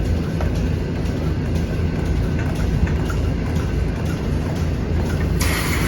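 Milking-parlor machinery, the vacuum pump and milking units, running with a steady low drone. A loud hiss sets in near the end.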